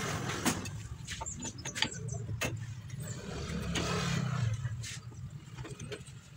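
Scattered metal clicks and clinks of drum-brake shoes and return springs being handled and fitted onto the backing plate, over the low hum of a running vehicle engine that swells about four seconds in.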